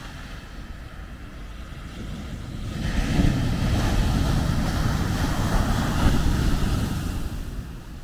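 Ocean surf: a wave breaks about three seconds in, its rushing noise swelling and staying loud for about four seconds, then fading as the foam washes up the sand.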